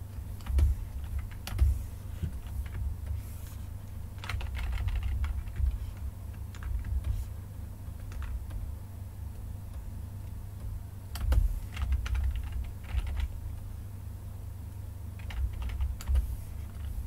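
Computer keyboard clicking: scattered single keypresses and a few short runs of keys, over a steady low hum.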